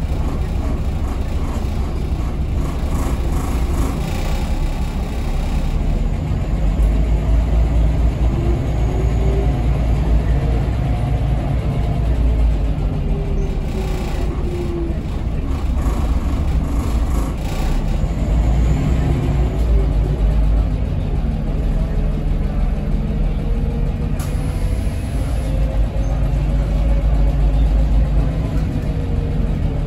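Interior of a Scania L94UB city bus under way: steady low rumble from its rear-mounted Scania DSC9 diesel engine and ZF Ecomat automatic driveline, heard inside the cabin. A whining note rises and falls several times with the bus's changing speed.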